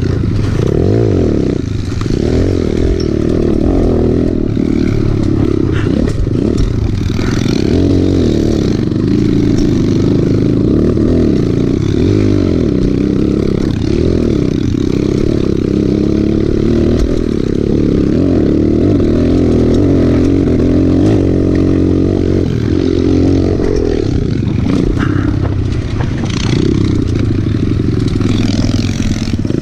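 Kawasaki KLX110 pit bike's small single-cylinder four-stroke engine being ridden hard on a dirt trail, its pitch rising and falling as the throttle is worked through turns and bumps. Scattered knocks and rattles come from the bike over rough ground.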